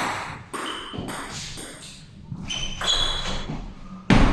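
Table tennis ball being struck and bouncing: several short, sharp pings and clicks at an uneven pace, then a loud thud near the end.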